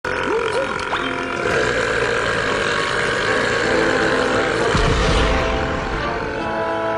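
A long, drawn-out cartoon belch from a female character, lasting about five seconds at a fairly even level, with a deeper rumble near its end.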